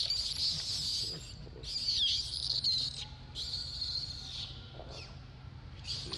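Baby macaque screaming in distress: long high-pitched cries of about a second each, repeated with short breaks, one dipping in pitch around two seconds in, and a new cry starting near the end.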